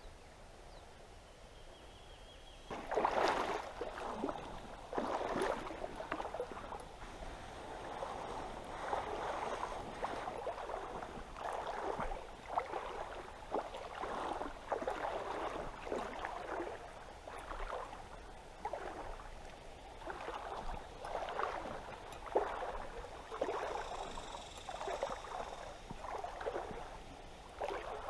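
A person wading through a shallow river, the water sloshing and splashing around the legs with each stride, about one step a second, starting a few seconds in.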